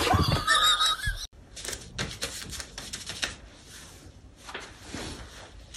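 A thump and a brief high wavering cry, cut off suddenly about a second in. Then quick irregular clicks, taps and rustles as a tabby cat moves about on a wooden floor with a strip of paper caught on it, thinning out toward the end.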